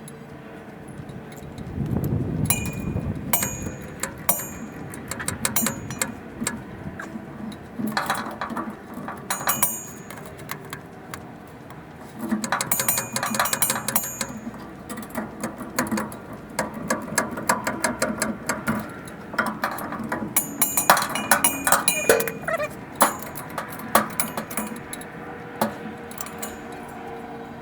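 Hand tools working on metal in short bursts: rapid runs of ratchet-like clicking and light metallic clinks and knocks as the parking brake's hydraulic actuator is fitted back in place.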